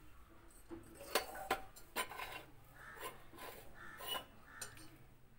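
A steel spoon tapping and clinking against a small steel pan holding dry ragi flour: a handful of light, separate clinks spread through.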